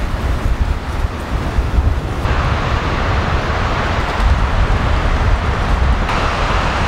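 Strong wind buffeting the microphone outdoors: a steady low rumble with a rushing hiss, which grows brighter about two seconds in and again near the end.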